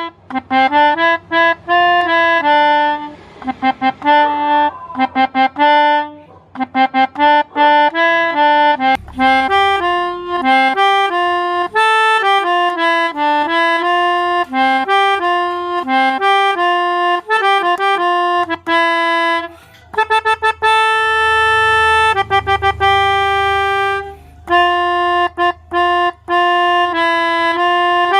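Telolet bus horn set, Basuri and Alzifa multi-trumpet air horns combined, playing a melody of quick, short notes with a reedy tone. About twenty seconds in, it holds one long chord for a few seconds, then returns to short notes, with a faint low rumble under parts of it.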